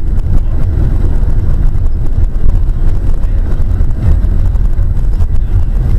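Loud, steady low rumble of a moving vehicle, road and engine noise with no distinct events.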